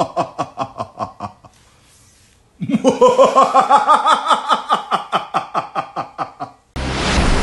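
A person laughing in two runs of rapid, rhythmic 'ha-ha' pulses, about five a second, each pulse falling in pitch; the second run is louder and longer. Music starts suddenly near the end.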